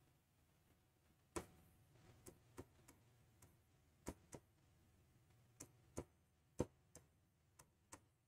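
Faint, sharp taps of a marker pen on a writing board as letters and numbers are written by hand, about ten irregular strokes.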